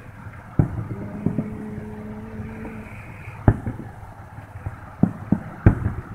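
Fireworks going off at a distance: a string of about eight sharp bangs, the loudest about three and a half and five and a half seconds in. A steady low drone runs from about one to three seconds in, over a constant background rumble.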